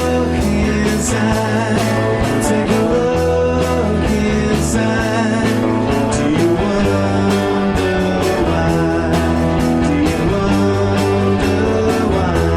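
Rock song with a psychedelic feel playing: electric guitar, bass and drums with singing.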